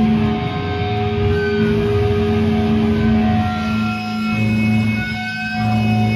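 Amplified electric guitars and bass holding a loud, sustained droning noise with a few short whining feedback tones sliding in pitch, and no drums playing.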